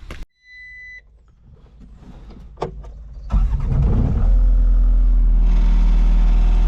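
Skid loader's short warning beep, then its engine cranks, catches about three seconds in and settles into a steady idle: a cold start in freezing weather.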